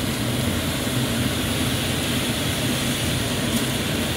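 Steady rushing drone with a low hum from a running kitchen appliance, unchanged throughout.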